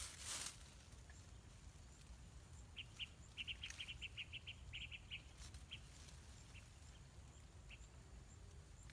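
A small bird chirping: a quick run of short, high chirps about three seconds in, followed by a few single chirps spaced out. A brief rustle of leaves comes right at the start.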